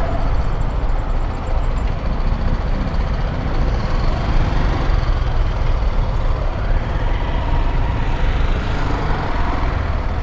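Honda XRE 190's single-cylinder engine running on the move, under a steady low rush of wind on the microphone, with road and traffic noise around it.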